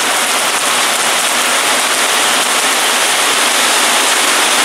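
Heavy downpour of rain: a loud, steady hiss.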